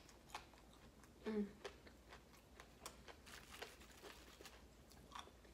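Faint scattered clicks and crinkles from fried food and its paper wrapper being handled, with a brief hum from a voice about a second in.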